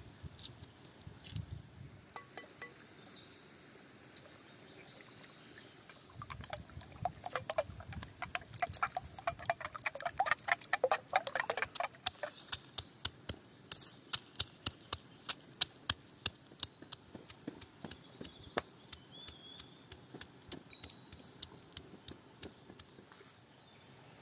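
Eggs being beaten with a fork in a bowl, the fork clicking rapidly against the bowl. It starts about six seconds in, becomes slower, sharper taps a few times a second, and thins out near the end. Birds chirp faintly.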